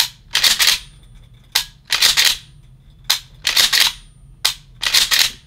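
Pump-action shotgun being worked over and over: a sharp click, then the pump slide racked back and forward. This repeats four times, about every second and a half.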